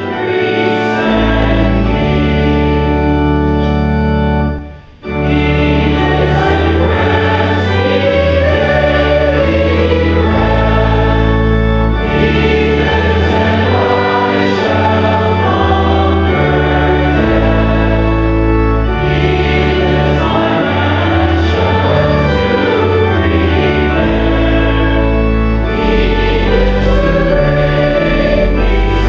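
A congregation singing a hymn with pipe organ accompaniment, held chords over steady bass notes. There is a brief break between phrases about five seconds in.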